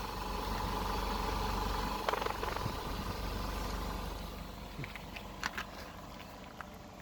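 Citroen car engine idling steadily, with a few brief clicks; the sound grows fainter through the second half.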